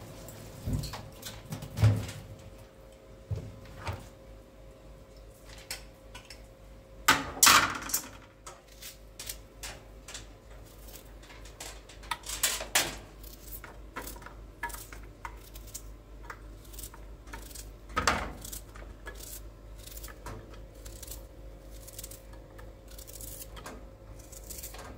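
Intermittent clatter of objects being handled: scattered light clicks and knocks, with a few louder knocks spread through, over a faint steady hum.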